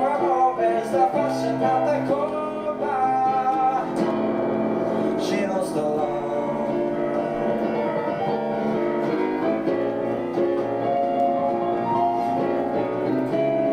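Music with piano, playing steadily.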